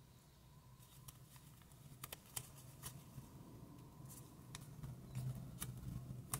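Small square of origami paper being folded and creased by hand: faint, sparse crackles and clicks as the paper's edges are brought to the centre and pressed flat, over a low steady hum.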